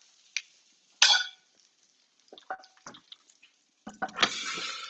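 Kitchen utensils and dishes clinking as a steak is plated: a sharp ringing clink about a second in, a few light taps, then a longer clattering rush near the end.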